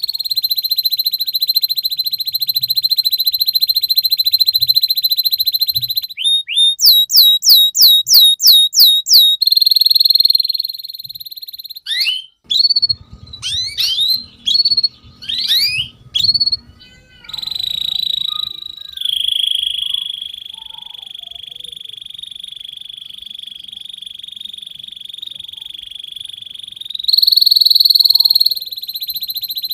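Domestic canary singing a long song. Fast buzzing trills are held on one pitch, broken by a run of about ten sharp rising notes and then a burst of quick sweeping chirps. Another long trill follows, which jumps back up in pitch near the end.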